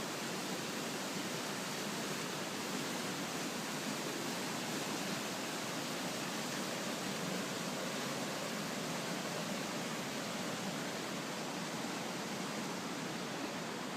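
Steady rushing of a flood-swollen river.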